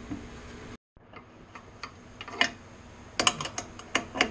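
Open-end wrench clicking and clinking against the nuts on a bandsaw table's mounting bolts as they are tightened: irregular sharp metallic clicks, more frequent in the second half. The sound drops out completely for a moment just under a second in.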